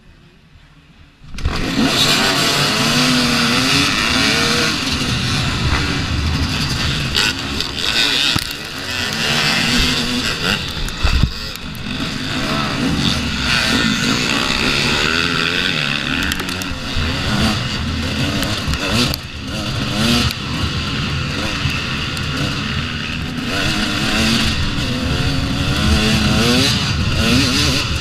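2014 KTM XC-W 250 two-stroke dirt bike engine. It comes in suddenly about a second in, then runs hard under load, revving up and down over and over as the bike is ridden off-road.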